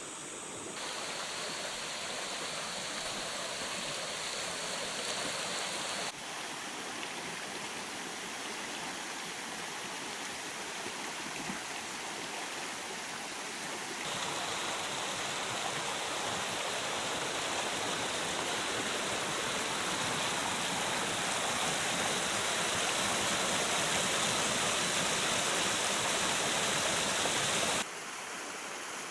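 Shallow jungle stream rushing over rocks and small rapids: a steady hiss of running water that changes level abruptly a few times, louder from about halfway through and dropping sharply just before the end.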